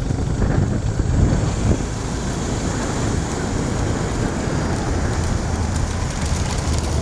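Steady rushing noise with a heavy low rumble: wind on the microphone over vehicle engines running.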